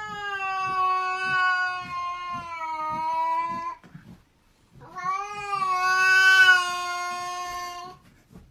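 A cat giving two long, drawn-out meows, each lasting about four seconds, with a short pause between them; the pitch holds nearly steady and sags slightly toward the end of each.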